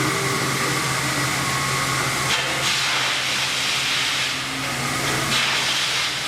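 Milling machine running while it cuts a stamping die: a steady hiss with a thin high whine and a low hum underneath. The hiss swells twice, about two and a half seconds in and again near the end.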